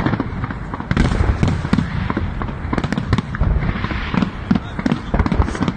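Fireworks going off: an irregular run of sharp pops and bangs over a steady low rumble.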